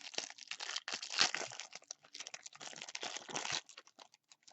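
Wrapper of a trading card pack crinkling as it is opened and handled, with dense crackling that thins out to a few small clicks near the end.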